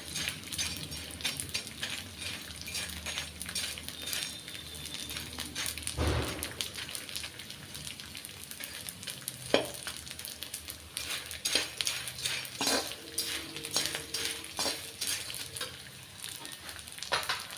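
Edible gum (gond) frying in hot desi ghee in an iron kadhai, a steady sizzle, while a ladle stirs it with irregular scrapes and clinks against the pan and a heavier knock about six seconds in.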